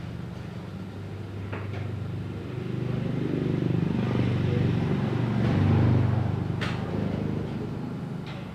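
A motor vehicle engine passing by, growing louder to a peak and then fading away. A few sharp metallic clicks from tools are also heard.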